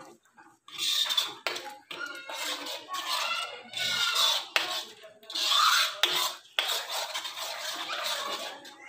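Spatula scraping and stirring thick curry gravy in a metal kadai, mixing in garam masala, in repeated irregular scrapes with short pauses.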